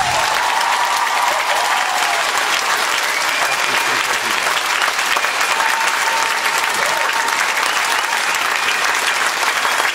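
Theatre audience applauding steadily and loudly at the end of a dance number, just as the music stops.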